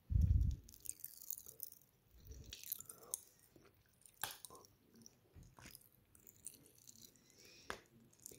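Close-up chewing and crunching of candy right at the microphone, with scattered short crunches and mouth clicks. A low thump in the first half-second is the loudest sound.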